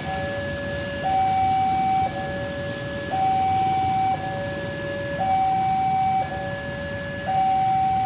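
Railway level-crossing warning siren sounding a two-tone alarm, a higher and a lower tone alternating about once a second, over a background rumble of traffic. It is the warning that a train is coming and that the crossing gates will close in a few seconds.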